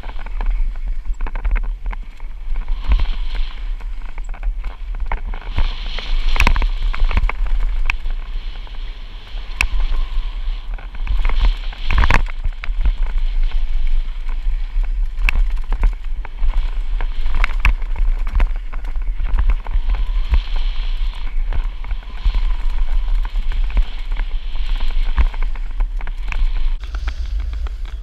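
Downhill mountain bike at speed on a dirt trail: tyres rolling over packed dirt and dry fallen leaves, with frequent sharp knocks and clatters from the bike over bumps, and heavy wind rumbling on the action camera's microphone.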